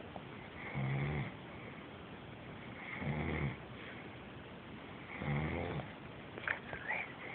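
A sleeping man snoring loudly, three slow rumbling snores about two seconds apart. A short high squeak comes near the end.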